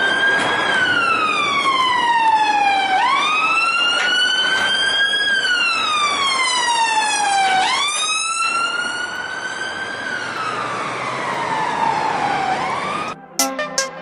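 Police siren wailing: a pitched tone that climbs, then falls slowly, the cycle repeating about every four and a half seconds. It cuts off abruptly near the end.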